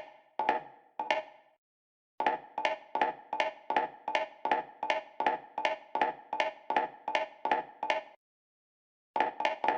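Hard-soled shoe footsteps clicking on a hard floor. A few steps stop after about a second and a half. After a short pause comes a steady walk of about three steps a second lasting some six seconds. A second pause follows, then quicker steps near the end.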